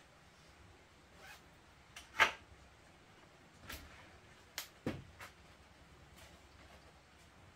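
Slatted bamboo cabinet door being opened and things handled inside: a few short wooden knocks and clatters, the loudest about two seconds in.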